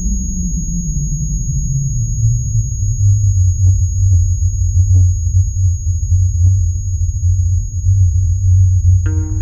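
Deep synthetic drone sliding down in pitch over the first few seconds and then holding steady, under a thin high-pitched whine. A guitar chord of the score comes in near the end.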